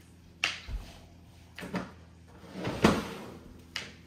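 Kitchen drawer or cupboard being opened and shut while a fork is fetched: four separate knocks and rattles, the loudest about three seconds in.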